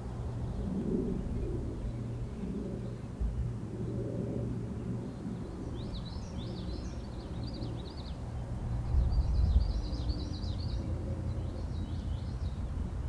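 A small songbird singing in three bursts of high, quick chirping notes, starting about six seconds in, over a low steady rumble.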